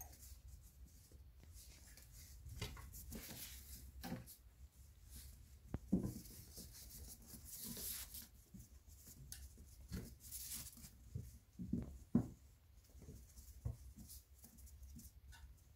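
Two kittens scampering and tussling on a tiled floor: scattered soft scuffs and light thumps, the loudest about six seconds in and again about twelve seconds in.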